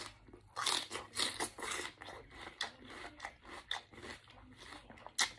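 Close-up biting and chewing of crispy fried lemon pepper chicken wings: a run of loud crunches in the first couple of seconds, then lighter, scattered crunching.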